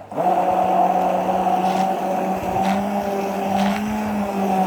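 A small electric motor runs at a steady pitch. It cuts out for a moment at the start, restarts, and rises slightly in pitch in the second half, with a few faint clicks over it.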